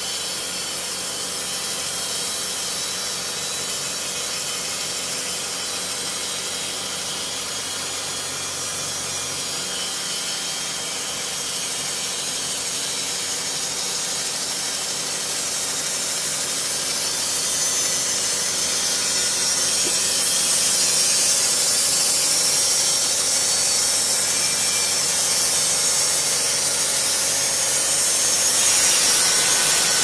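Band sawmill's blade cutting lengthwise through a large log, a steady sawing hiss that grows louder and brighter a little past halfway through.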